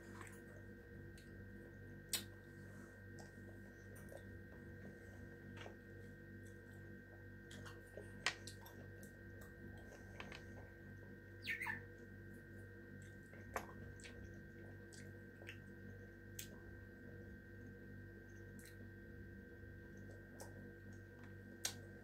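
Faint mouth sounds of eating sweet cherries: a few short clicks and smacks as the cherries are bitten, chewed and their stones taken out. Under them runs a steady faint hum.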